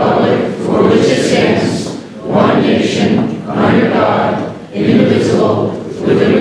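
A roomful of people speaking or singing together in unison, in phrases about a second and a half long with short breaks between them.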